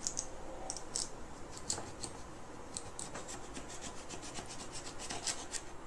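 Kitchen knife sawing through a raw potato on a plastic cutting board: a string of short scraping strokes that come quicker, several a second, around the middle.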